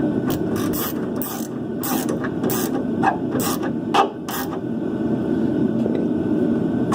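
Hand ratchet wrench clicking in short back-and-forth strokes, running a nut up onto a rear shock absorber's upper mounting bolt. About ten strokes come in the first four and a half seconds, then stop, over a steady low background noise.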